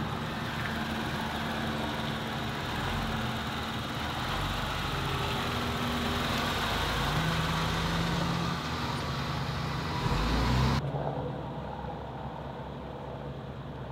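SUV engine running and tyres rolling as the vehicle drives slowly in and pulls up, the engine note stepping between pitches. The sound drops off suddenly about eleven seconds in.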